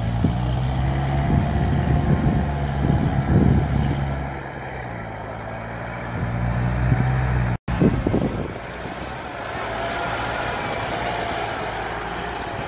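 Kubota farm tractor's diesel engine running steadily, with a few louder clattering bursts in the first few seconds. A little past halfway the sound cuts out abruptly. It then resumes quieter, with a faint wavering whine over the drone.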